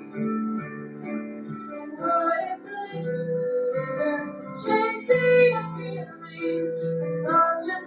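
A song playing: a female voice singing over an instrumental accompaniment.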